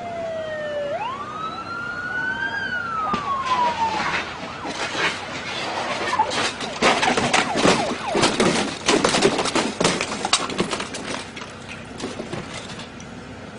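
A police siren wails once, rising and then falling over the first four seconds. It gives way to a long stretch of irregular scraping and clattering as a police motorcycle and its rider crash and slide along the asphalt.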